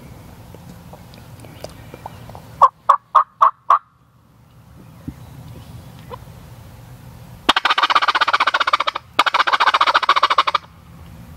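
Five short yelping notes in quick succession, then a wild turkey gobbler gobbling twice, each gobble a loud rapid rattle lasting about a second and a half.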